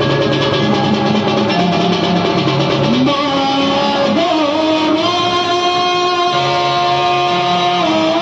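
Dulduli folk ensemble playing: stick-beaten drums and a barrel dhol keep up a fast, even rhythm under a held lead melody that slides in pitch a few seconds in and again near the end.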